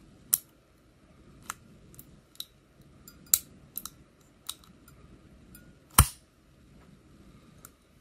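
A small knife bypass tool probing inside a Master 178D combination code-wheel padlock, feeling for the shackle latch. It makes scattered, irregular sharp clicks, about a dozen, the loudest about six seconds in.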